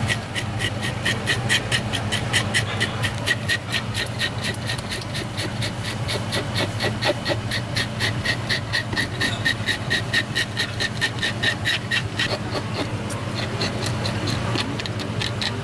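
Metal-toothed fish scaler scraping the scales off a red grouper (akajin miibai) in quick, even rasping strokes, several a second, with a short break about twelve seconds in. A steady low hum runs underneath.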